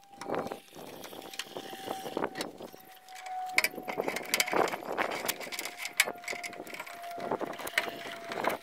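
Scattered clicks, taps and scrapes of wires and a screwdriver being worked inside a metal breaker panel, with a faint steady tone in the background that slowly sinks in pitch.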